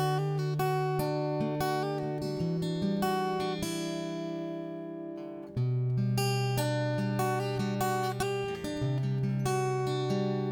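Instrumental music: plucked guitar notes over long-held bass notes that change every few seconds.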